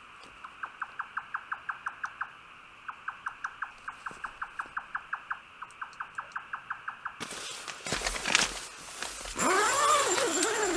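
A rapid string of short, high chirping calls from a night-calling animal, about eight a second, broken by two brief pauses. About seven seconds in it gives way to a louder rushing noise with wavering, gliding tones.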